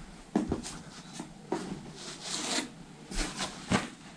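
Rustling and handling noises as fabric is taken out of a parcel: a string of soft knocks and rustles, with a longer rustle about two seconds in.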